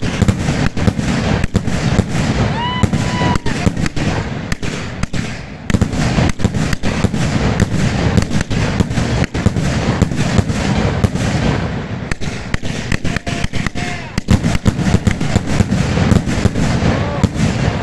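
Rooster Rules 66-shot consumer fireworks cake firing in quick succession: a dense stream of launch thumps and aerial bursts, with brief lulls about six and fourteen seconds in.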